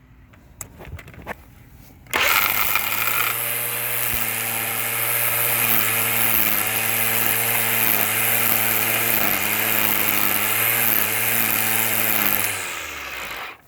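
Black & Decker electric string trimmer switched on about two seconds in, running steadily for about ten seconds, then winding down near the end. A brief rattle at the start is excess line that was left over being cut off. After that it runs smoothly, because the spool spring is back in place.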